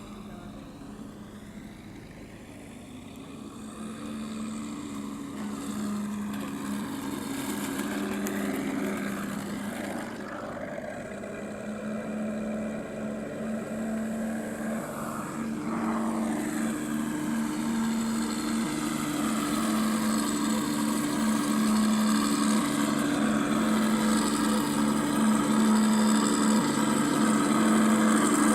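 Electric RC P-51 Mustang warbird flying in to land, its onboard sound module playing a simulated piston-engine drone over the electric motor and propeller. It gets steadily louder as the plane comes closer, with the pitch sliding up and down in the middle as it passes.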